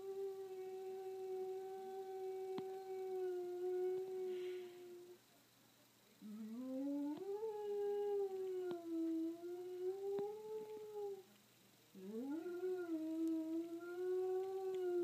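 Great Dane howling in long, moo-like calls. There are three drawn-out calls with short gaps between them: each slides up at the start and then holds for several seconds with a slight wobble in pitch.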